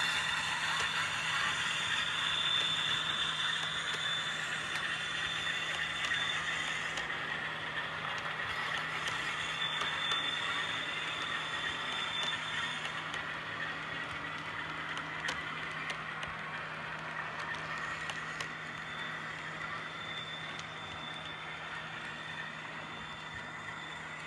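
Model container train running past on the layout: the wagons' wheels rattle and click over the rail joints and pointwork, with a steady high whine. It fades slowly as the train draws away.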